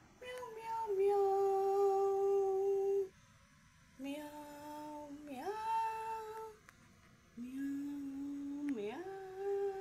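A woman humming a slow lullaby to a cat in long, held notes, with short pauses and a few quick upward slides between them.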